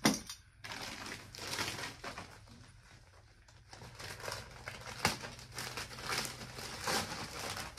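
Thin frosted plastic garment bag crinkling in irregular bursts as it is handled and pulled open, with a sharp knock at the very start and a sharp click partway through.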